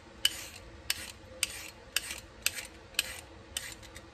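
Handheld Y-peeler scraping down raw carrots in quick repeated strokes, about two a second, each a short rasp.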